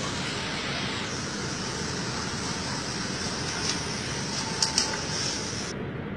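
Steady rushing street noise with hiss, like distant traffic at night. Two sharp clicks about four and a half seconds in, and the high hiss drops away suddenly near the end.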